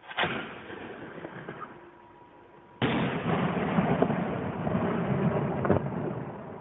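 Festive fireworks going off: a single loud bang just after the start that echoes away, then from about three seconds in a dense, rapid volley of bangs lasting about three seconds, with one sharper crack near its end.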